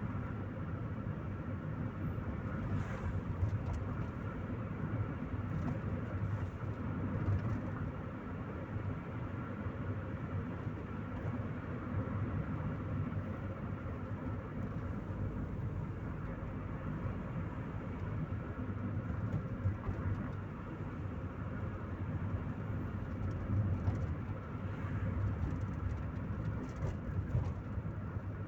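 Chevrolet Corsa Maxx driving, heard from inside the cabin: a steady low engine hum with tyre and road rumble, and a few light knocks from the road surface.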